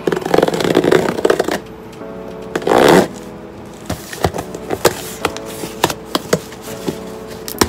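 Scissors cutting open a cardboard shipping box: crackly cutting and tearing in a long burst, then a shorter one, followed by scattered clicks and taps as the packaging is handled. Soft background music runs underneath.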